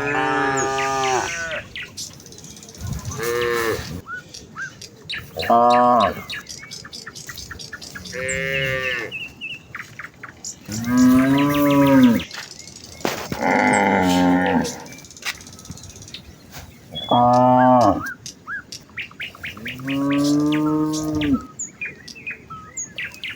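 Cattle in a herd mooing to each other: about eight long, drawn-out moos one after another, each a few seconds apart.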